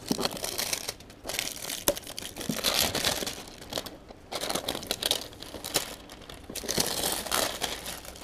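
Clear plastic bag crinkling in irregular bursts as a small cardboard box is slid out of it and the loose plastic is handled, with a few sharp clicks and brief lulls.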